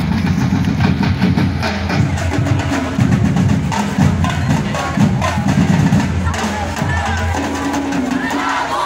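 Percussion music for street dancing: drums beating a driving rhythm with a clacking wood-block-like beat, and voices shouting near the end.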